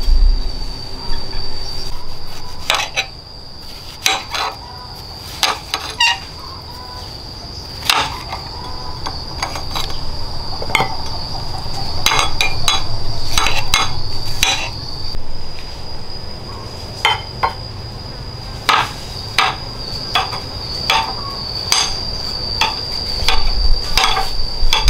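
A steady high-pitched insect drone, with scattered sharp clinks and knocks of handled utensils or dishes coming irregularly throughout.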